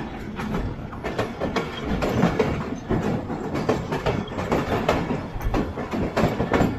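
Passenger train wheels clattering over rail joints, heard from on board the moving train: rapid, irregular knocks over a steady rumble.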